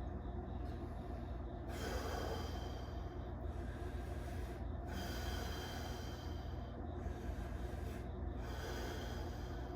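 A man breathing slowly and steadily through his nose while sitting in a cold plunge, a breath every second or two, over a steady low hum.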